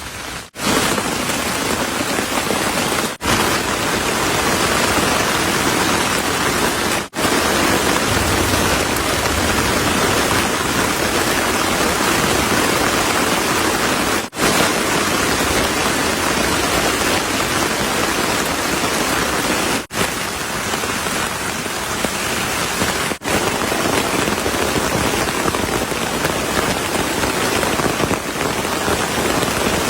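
Heavy rain falling steadily, a dense even hiss, with a few sudden split-second breaks in the sound.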